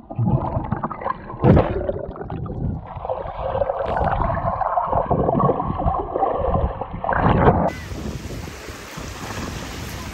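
Muffled underwater gurgling and bubbling picked up by an action camera under the sea surface as a swimmer blows bubbles, with a couple of louder surges. About eight seconds in it cuts to wind on the microphone and small waves washing onto a sandy shore.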